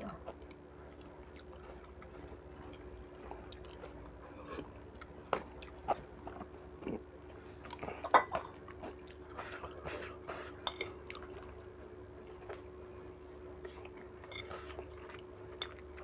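Spoon and fork clinking and scraping against a bowl while eating, in scattered knocks, the loudest about eight seconds in, over a faint steady hum.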